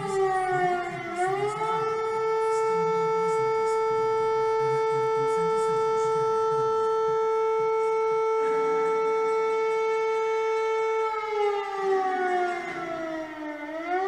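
Outdoor civil defence siren sounding a single held tone with strong overtones. About a second in, its pitch dips and climbs back, then holds steady. Near the end it slides slowly down and swings back up again.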